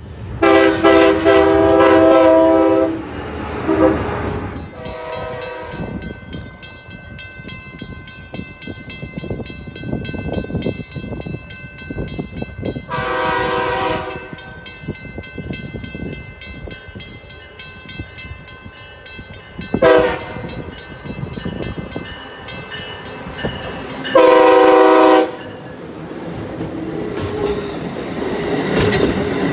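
Amtrak Acela Express train horn sounding a series of blasts: a long one at the start, a short one soon after, then three more spaced several seconds apart as the train approaches. Near the end the train passes close by, with rising wheel and car clatter.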